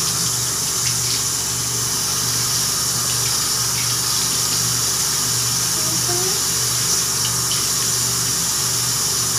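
Bathroom sink tap running steadily as a rabbit is washed under it, with a low hum underneath.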